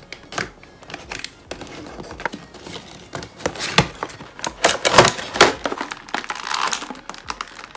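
Cardboard toy box being opened and a clear plastic blister tray pulled out and handled: irregular crinkling, rustling and clicks of card and plastic, loudest about five seconds in.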